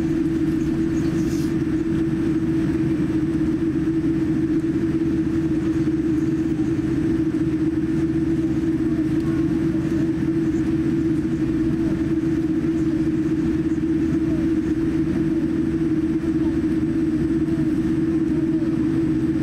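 Cabin noise inside a Boeing 787-9 airliner taxiing: a steady drone with a strong, constant low hum.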